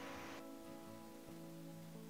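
Quiet background music with soft held notes.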